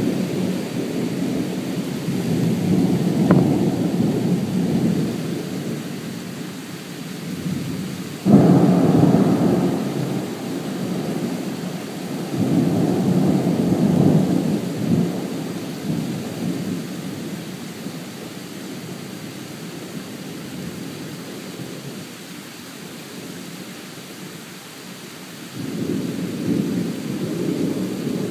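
Thunder rumbling in several rolling peals over a steady hiss. The loudest peal starts suddenly about eight seconds in, and another swells near the end.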